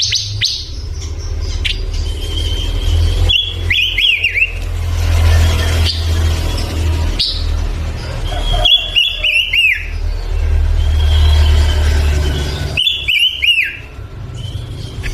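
A male panca warna songbird singing in three short bursts, each a brief held whistle followed by a quick run of falling notes, over a steady low rumble.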